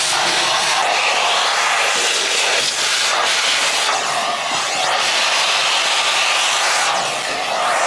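Vacuum cleaner running steadily, its hose nozzle sucking up wood shavings and sawdust from drilled screw holes in pine boards. The rushing sound shifts up and down in pitch as the nozzle moves over the wood.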